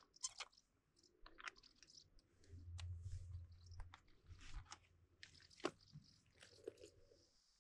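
Faint, scattered clicks and scrapes of small plastic items being handled: a little plastic oil bottle is capped and slotted back into a hard-shell condiment case. Near the end comes a short rustle as the case is closed.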